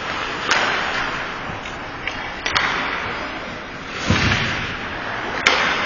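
Ice hockey play on an indoor rink: skates scraping the ice under a steady hiss, three sharp clacks of sticks and puck about two seconds apart, and a dull thud past the middle.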